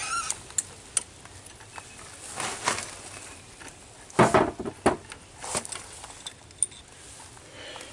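Socket and breaker bar clicking and clanking on the big 1-inch nut of a frost-proof outdoor faucet as the stem is worked loose, in scattered short knocks with the sharpest about four seconds in.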